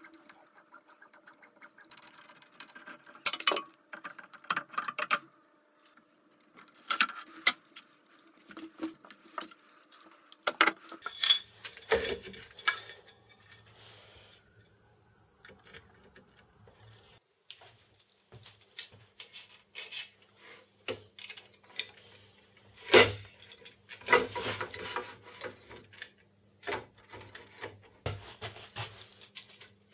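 Irregular metal clicks, taps and rattles from handling and screwing together aluminium extrusion parts as a C-beam Z-axis actuator is fitted to a CNC gantry. A faint steady low hum sits underneath from about halfway through.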